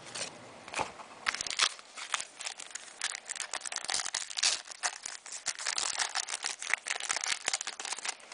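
Trading-card pack wrapper crinkling and tearing as it is opened by hand: a dense run of irregular crackles that thickens about a second in.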